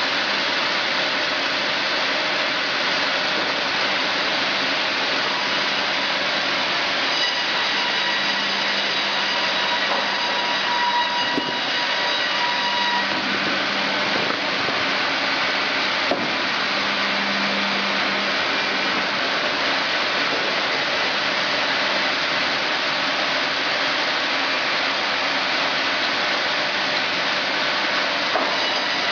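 Fimaksan multi-head band sawmill sawing a log, its band saw blades cutting steadily through the wood over the machine's running drive.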